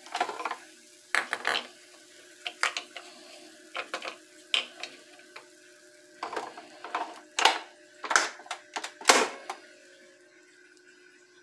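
Irregular sharp plastic clicks and knocks, about a dozen, as the parts of a capsule espresso machine are handled and fitted, over a faint steady hum.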